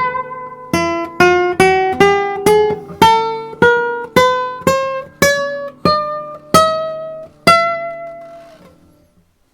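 Cedar and cypress flamenco blanca guitar played as a single-note melody, plucked notes about twice a second over ringing lower strings. The notes slow toward the end, and the last one rings out and fades away.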